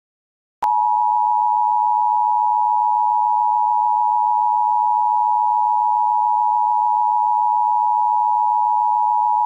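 Emergency Alert System attention signal: a loud, steady two-pitch electronic tone that starts abruptly about half a second in and holds unchanged for about nine seconds before cutting off suddenly. It is the alert tone that announces an emergency broadcast message.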